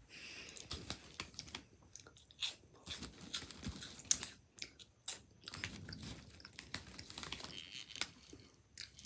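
Small plastic toys being handled close to the microphone: a run of irregular clicks, crackles and rustles against the bed cover.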